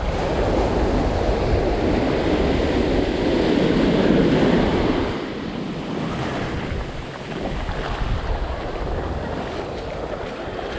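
Surf washing in around the feet in shallow beach water, with wind buffeting the microphone. The wash swells for the first few seconds, then eases.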